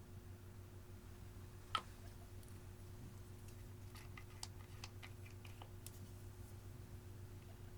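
Faint sticky clicks and small pops of clear slime being handled, with one sharper click about two seconds in and a quick scatter of small clicks around the middle, over a steady low hum.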